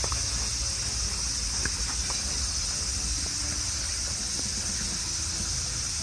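Steady, high-pitched chorus of insects droning without a break, over a low rumble on the microphone and a few faint ticks.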